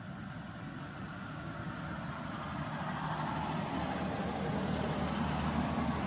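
Steady low engine-like rumble, slowly growing louder, with a thin steady high-pitched whine above it.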